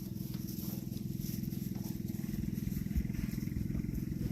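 A small engine running steadily at an even, low hum.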